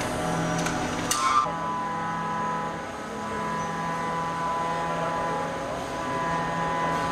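Steady hum of workshop machinery with several fixed pitches, including a high whine. A few sharp metallic clicks sound about a second in as submachine-gun parts are handled at the workbench.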